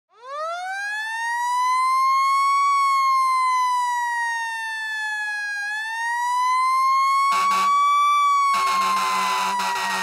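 Fire engine siren wailing, rising and falling slowly in pitch twice. A lower, buzzy blast cuts in briefly at about seven seconds and again from about eight and a half seconds.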